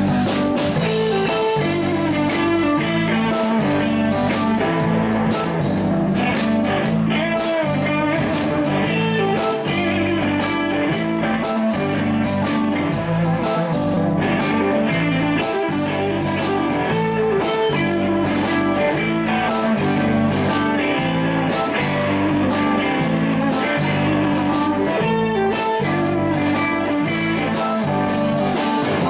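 Live band playing a blues number: electric guitar, electric bass and drum kit keeping a steady beat, with a saxophone.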